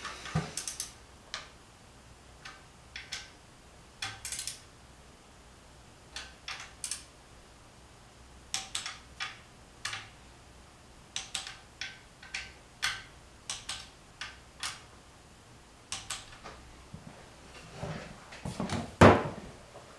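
Scattered sharp metal clicks and clinks of a hand ratchet and wrench being worked on bolts at an engine's cylinder head, coming singly and in short runs, with a louder clunk about a second before the end.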